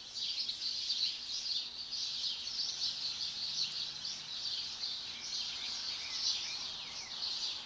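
Many small birds singing and chirping at once in a dense morning chorus, a steady mass of high twittering with no single bird standing out.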